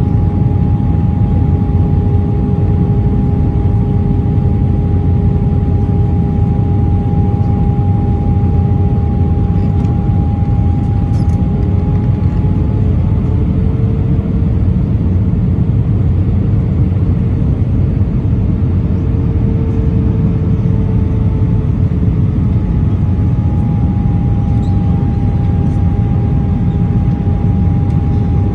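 Airbus A319 cabin noise heard from a window seat over the wing: a loud, steady rush of jet engines and airflow with two steady engine hums on top. About halfway through, the lower hum rises slightly in pitch while the higher one fades out. Both return to their earlier pitch near the end.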